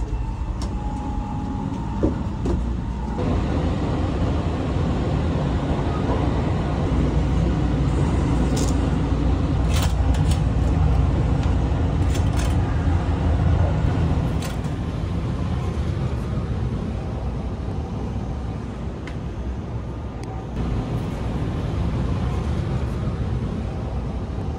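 Sunrise Izumo sleeper train heard from inside its corridors: a steady low rumble of the carriage on the move, louder in the middle. A few sharp clicks come in the middle.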